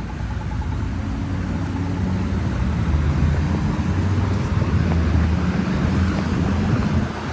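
Road traffic: motor vehicle engines rumbling past, the sound building from about two seconds in and dropping off suddenly just before the end.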